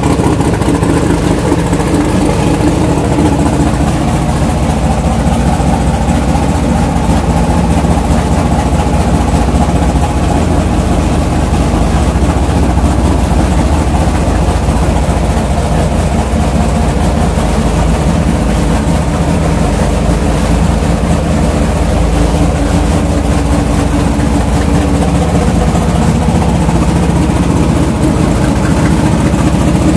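A 426 race Hemi V8 with dual four-barrel carburettors idling loudly and steadily, heard from inside the car.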